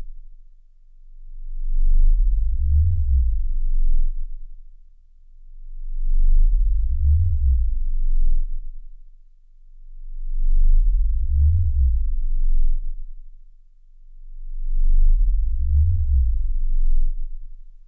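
Deep electronic sine-tone drone swelling and fading in slow, even waves, about one swell every four seconds, four times.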